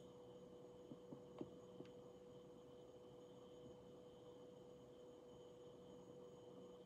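Near silence: room tone with a faint steady electrical hum, and a few faint ticks a second or two in.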